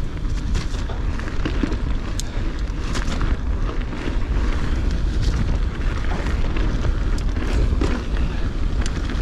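Wind buffeting the chest-mounted GoPro's microphone in a steady low rumble while a mountain bike is ridden over a rough stony track, with the bike rattling and clicking over the stones.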